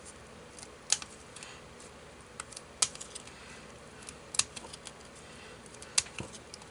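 Scissors snipping through paper card: four sharp snips, roughly one every one and a half to two seconds, with fainter clicks between them.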